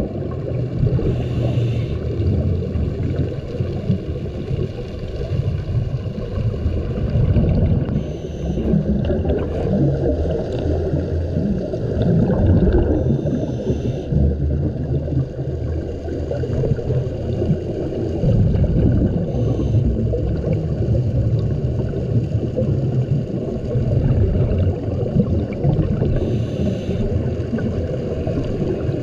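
Underwater sound of a scuba dive: a continuous low rumble of moving water in strong current, with a short hiss from the diver's regulator breathing every five or six seconds.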